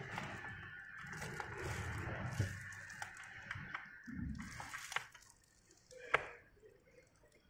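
Handling noise from hand assembly: plastic wrap crinkling and light clicks as a small metal bolt is fitted by hand into a fabric-covered part, with one sharper click about six seconds in.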